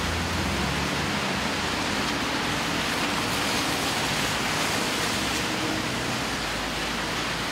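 Steady street noise on a wet day: an even hiss of rain and car tyres on the wet road, with a low hum of traffic under it.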